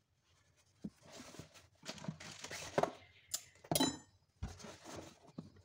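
Lunch containers being packed into a fabric lunch bag: rustling of the bag's nylon, knocks of plastic containers, and a bright metallic clink with brief ringing from a steel spoon and stainless steel container about three and a half seconds in. A dull thump follows near the end.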